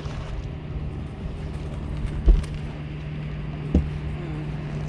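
Steady low hum of a bow-mounted electric trolling motor, with two dull thumps on the boat deck about two and three and a half seconds in as an angler drops to his knees to land a hooked fish.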